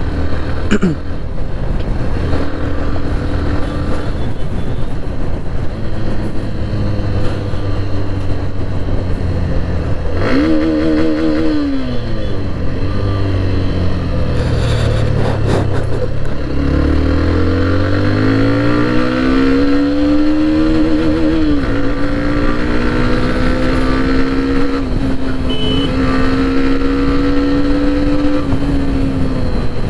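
Hero Xtreme 125R's single-cylinder engine running, its pitch climbing and dropping back several times, then holding a steadier, higher pitch with small dips.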